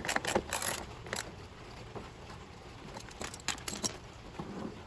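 Light metallic clicks and clinks from a socket set as a lawn mower's rear wheel is fastened back onto its axle, in two short irregular clusters: one in the first second and another about three seconds in.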